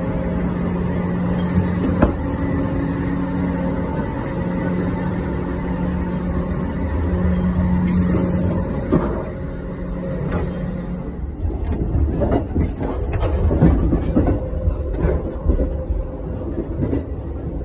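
Running noise inside a moving 651 series electric train: a steady low rumble with a low hum that holds and breaks off several times. From about nine seconds in, a run of short knocks and rattles from the door and fittings being handled.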